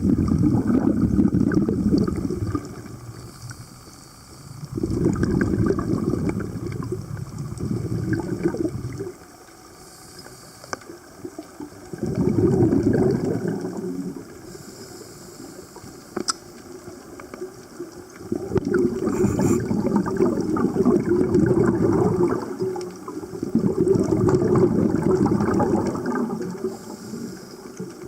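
Scuba diver's exhaled breath bubbling out of a regulator underwater: about six bursts of bubbles, each a few seconds long, with quieter pauses between breaths.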